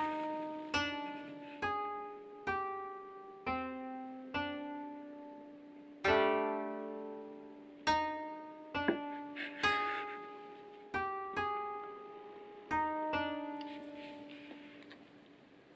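Background music: a plucked string instrument playing single notes and small chords, about one a second, each ringing out and fading.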